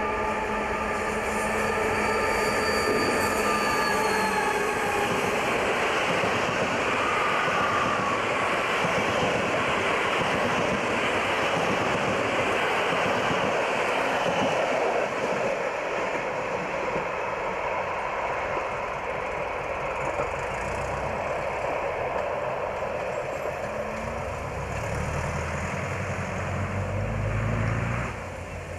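A DR 'Ludmilla' heavy diesel locomotive goes by with its engine drone, which dips in pitch about four seconds in. This is followed by the steady rolling noise of its passenger coaches running past on the rails for some twenty seconds. Near the end a road vehicle's engine rises, and the sound cuts off.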